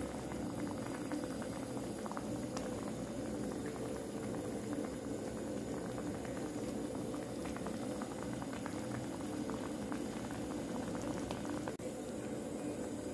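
Beef-and-mushroom hot pot broth boiling in a shallow pot on a portable gas burner: a steady bubbling with many small pops. The sound dips briefly near the end.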